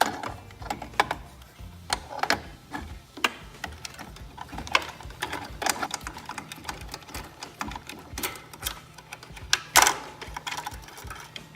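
Irregular clicks, taps and knocks of hand tools and metal parts being worked while a gas water heater's burner and pilot assembly are disconnected and taken out, with one louder click near the end.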